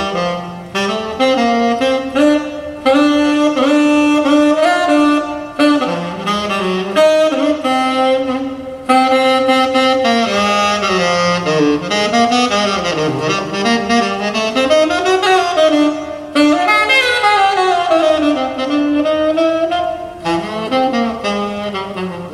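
Jazz record played back over a hi-fi system: a solo wind instrument carries a gliding melody over a backing band, with short breaks between phrases. It is reproduced from a VPI turntable through tube amplification and Rogers loudspeakers.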